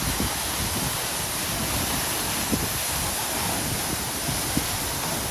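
Steady rushing roar of a waterfall, with irregular low buffeting of wind on the microphone.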